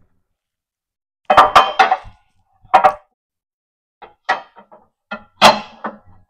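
Steel front hanger bracket of a mower deck clanking and rattling against the deck's mounting bracket as it is worked into place. There is a quick run of metal clanks about a second in and another a little later, then lighter knocks and clinks.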